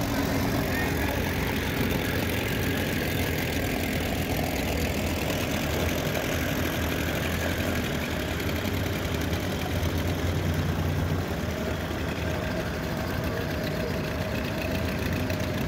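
Antique outboard motor running steadily, driving a small aluminum boat along at cruising speed.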